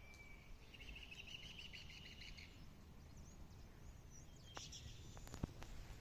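Faint birdsong: a short whistled note, then a rapid chirping trill lasting about two seconds, with a few more chirps and a couple of sharp clicks near the end.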